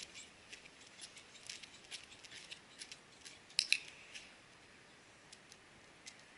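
Faint, irregular light clicks and ticks, with a sharper, louder double click a little past halfway.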